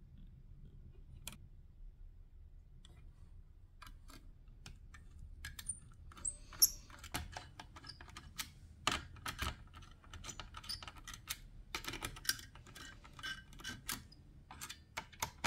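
Irregular small clicks and light metallic taps of a 1U CPU cooler and its mounting hardware being handled and fastened onto a motherboard. Sparse at first, busier from about five seconds in.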